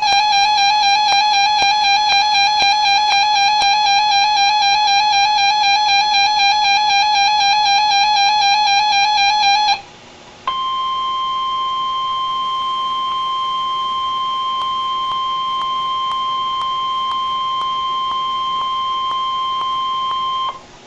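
A weather radio sounds a warbling electronic alarm tone, wavering rapidly in pitch, for about ten seconds. After a brief pause, the NOAA Weather Radio 1050 Hz warning alarm tone sounds steadily for about ten more seconds. That tone is the signal that switches on weather alert receivers, here sent as part of the weekly test.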